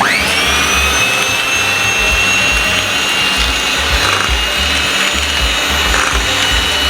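Electric hand mixer switching on with a quickly rising whine and then running steadily at high speed, whisking dairy cream and sugar.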